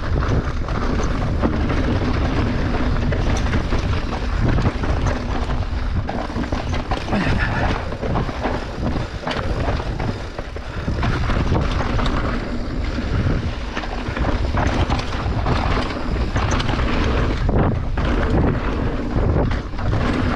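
A 29er full-suspension mountain bike on a fast downhill run, heard from an action camera: wind buffeting the microphone over the roar of tyres on rough dirt, with constant clattering and knocks from the bike over rocks and roots.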